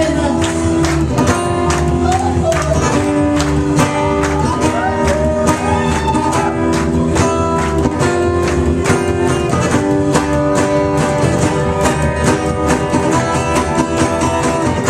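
Live band playing an upbeat number with guitar and a steady beat, with some singing.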